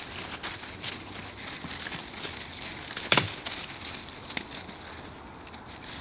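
Dogs' paws rustling and crunching through snow-covered dry leaves, grass and twigs as they sniff about, with one sharp snap about three seconds in.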